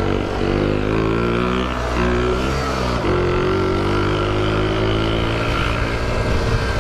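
Shineray 49cc motorcycle engine revving under way. Its pitch sinks over the first two seconds, jumps up sharply about three seconds in, then slowly eases off and holds. The rider calls the engine knocking.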